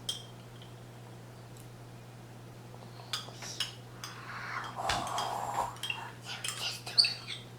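Light clinking and clatter of small kitchen utensils and dishes being handled, a single click at the start and then a run of irregular clicks with a brief rustle in the second half, over a steady low hum.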